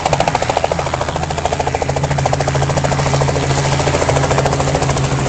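Aircraft engine running close by: a loud, rapid, even pulsing beat over a steady low hum.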